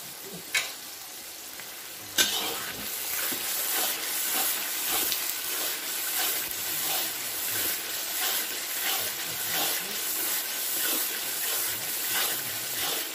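Food frying in hot oil in a steel wok over a wood fire, sizzling loudly with many small pops. The sizzle starts up sharply about two seconds in.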